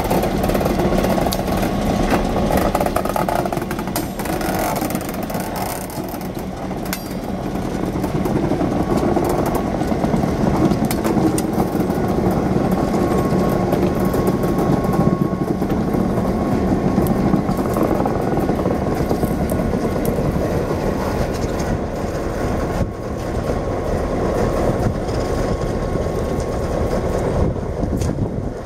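Nickel Plate Road No. 426 diesel locomotive running steadily as it rolls slowly past pulling a covered hopper car, then moving away.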